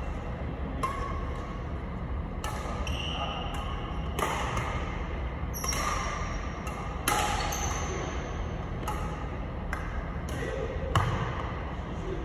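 Badminton rackets striking a shuttlecock in a rally: about eight sharp hits, one every second and a half or so, each with a brief high ring and echoing in a large hall. A steady low hum runs underneath.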